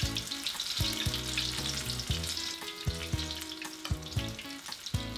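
Spoonfuls of ice-cold corn fritter batter frying in canola oil heated to about 375°F, a steady loud sizzle as the first fritters go into the oil.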